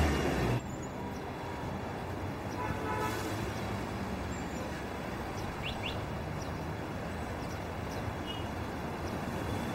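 Steady hum of street traffic, with a few faint bird chirps now and then.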